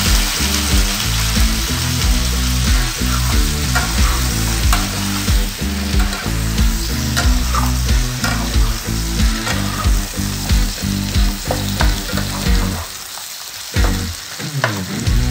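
Whole shrimp sizzling in hot oil in a nonstick pan while being stirred and tossed, with the spatula clicking and scraping against the pan. The sizzle dips briefly near the end.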